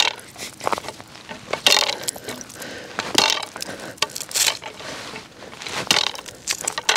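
Footsteps crunching on crusty snow over lake ice, one crunch every second or so, some harder than others.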